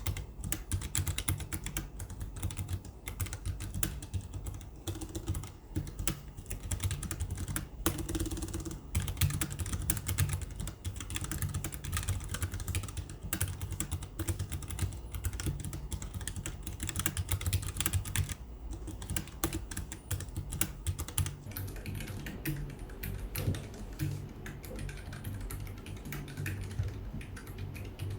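Continuous fast typing on a Keychron K7 mechanical keyboard with Mint switches: a dense, unbroken run of key clacks. The keys are heavy to press and the sound is described as very grounded.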